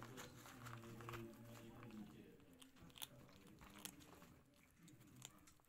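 Kittens eating dry cat kibble, with faint chewing and a crisp crunch every second or so at irregular intervals.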